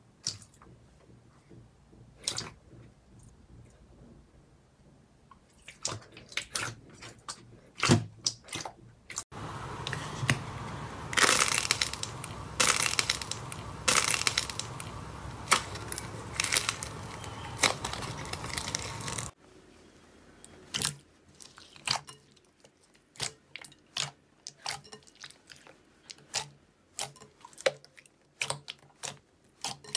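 Hands squeezing and pressing slime: scattered sticky clicks and pops. In the middle stretch a wrapped slime ball is squeezed, giving louder, dense crackling. Then softer squelching pops come from clear blue slime kneaded in a bowl.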